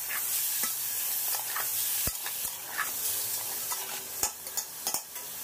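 Chicken pieces sizzling as they fry in hot oil and spice paste in a large pot on high flame, stirred, with a few sharp knocks against the pot.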